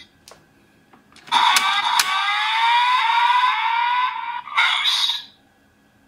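Electronic sound effect from a DX Kamen Rider Geats belt toy's small speaker: a couple of light clicks, then a loud synthesized tone rising slowly in pitch for about three seconds, a short final burst, and it cuts off.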